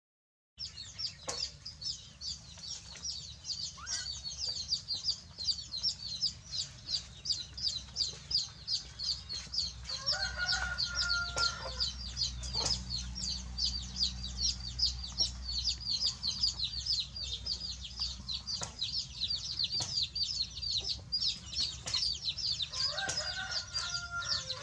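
Farmyard chickens: a steady rapid train of short high chirps, about three to four a second, with a rooster crowing about ten seconds in and again near the end.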